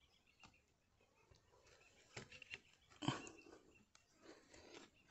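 Near silence with a few faint knocks and scuffs, the loudest about three seconds in.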